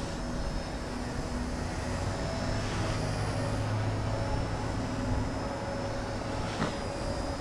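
XK K110s micro RC helicopter in flight on a flat 60% throttle curve: a steady buzzing whine from its motors and rotors, its pitch wavering slightly. Gusty wind rumbles on the microphone underneath.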